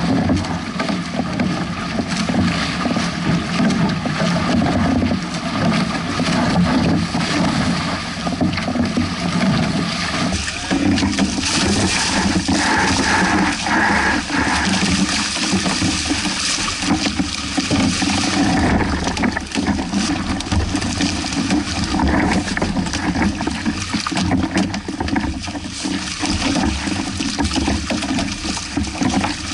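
Water rushing and splashing against the hulls of a Hobie 16 catamaran sailing through waves, a steady wash of noise.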